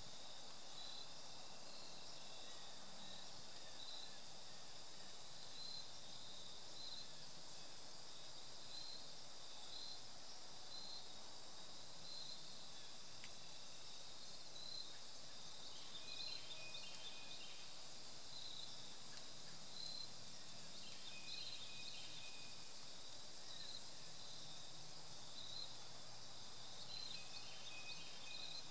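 A steady chorus of insects, with one chirping about once a second. A bird gives a short call of a few notes three times.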